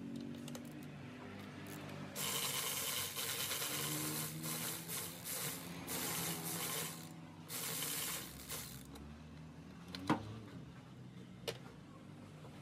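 Cordless electric ratchet whirring in several bursts of one to three seconds as it turns bolts, followed by two sharp metal clinks near the end.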